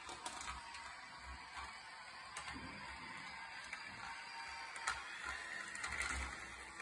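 Battery-powered Lego Duplo toy train running on plastic track, its small motor and gears whirring steadily with the wheels clattering over the track. A sharp click stands out about five seconds in.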